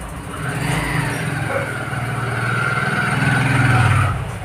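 A motor vehicle's engine passing close by, growing louder over about three seconds and falling away sharply near the end.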